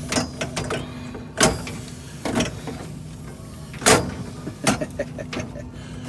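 Hand tools clicking and knocking against copper refrigerant lines, several sharp separate strikes, over a steady machinery hum.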